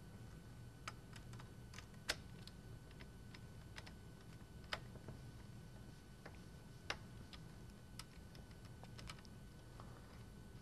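Faint, irregular small clicks and ticks of a hand screwdriver turning Phillips-head screws in the metal corner plates of an aluminium sectional picture frame, with a few sharper clicks about 2, 5 and 7 seconds in.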